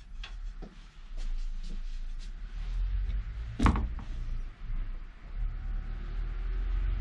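Pieces of wood being handled on a workbench: a few light clicks, then one sharp wooden knock a little past halfway as a thin strip is set against a small wooden box. A steady low hum runs beneath from about a second in.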